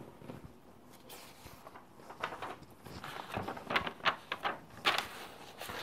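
Sheets of paper being handled on a desk: soft rustles and slides, several in a row, as a drawn page is lifted away to leave a blank sheet.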